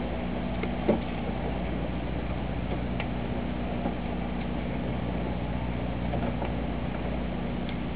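Steady low hum of boat machinery running, with a single knock about a second in and a few faint ticks.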